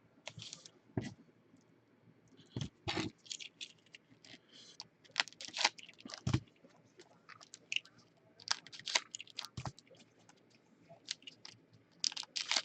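Irregular clicks, taps and crackly scraping from things being handled on a desk. There are a few heavier knocks, about a second in, near three seconds, at six and a half seconds, and near nine and a half seconds.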